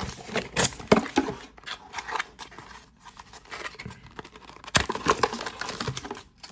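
Webcam box contents and packaging being handled: irregular rustling and crinkling with sharp clicks and taps, the loudest nearly five seconds in.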